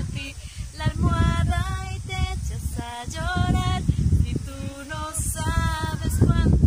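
Women singing a song unaccompanied, holding and wavering on sustained notes, with a low rumble underneath.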